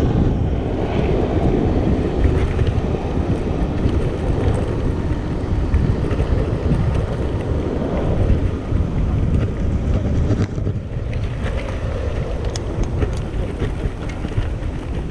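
Wind buffeting the microphone and a steady low rumble from an electric wheelchair handbike attachment riding over a rough grass track, with light scattered rattles.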